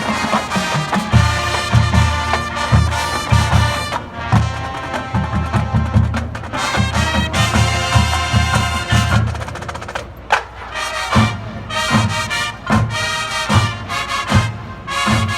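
Marching band playing on the field: brass chords over bass drums and percussion hits. About ten seconds in the brass drops back for a moment, leaving sharp percussion strokes, then the full band comes back in.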